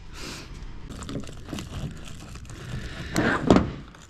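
Bundled cables and their plastic sheathing being handled and pulled, an uneven rustling with small clicks and a louder clatter about three seconds in.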